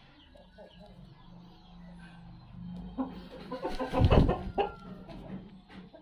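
Chicken clucking in short bursts, loudest a little past four seconds in.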